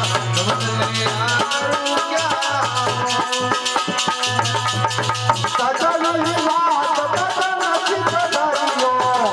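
Bhajan music played on instruments: a fast, steady rattling percussion beat over held melodic notes and a low note that comes and goes.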